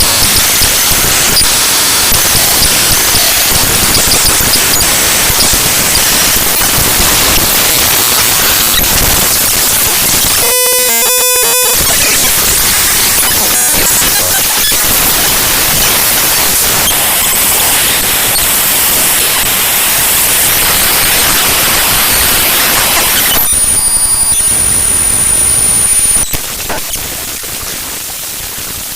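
Raw bytes of the Adobe AIR.dll file played back as audio: loud, harsh digital static, broken about a third of the way in by a second of buzzy pitched tones. Later a thin high whine sits over the static for a couple of seconds, and then the sound gets quieter.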